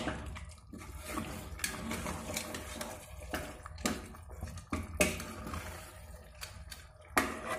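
Steel ladle stirring raw chicken pieces through an oily masala in an aluminium pressure cooker: wet squelching and sloshing, with a handful of irregular knocks of the ladle against the pot.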